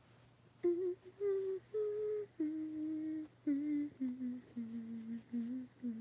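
A girl humming a short tune with her lips closed: about nine held notes that climb a little and then step down in pitch.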